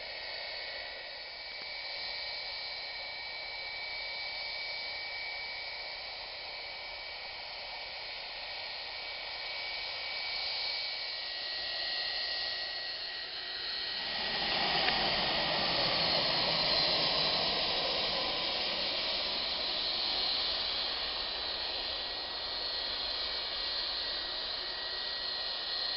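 Jet airliner engines: a steady high whine over a hiss, then about 14 seconds in a deep roar swells in and holds to the end as the aircraft passes.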